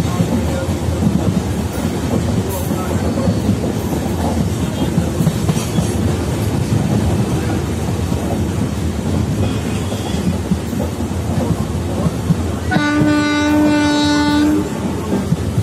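Passenger coach of the 12057 Janshatabdi Express running steadily, its wheels rumbling on the rails. Near the end a train horn sounds once, a single held note lasting about two seconds.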